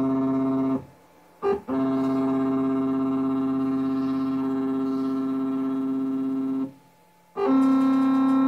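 Stepper motors of a Shapeoko CNC router whining at one steady pitch as the machine runs a BitZero 2.0 corner probe: a move that stops about a second in, a short blip, a longer move of about five seconds, a pause, then a short move near the end. The stops are where the probing pin touches the block.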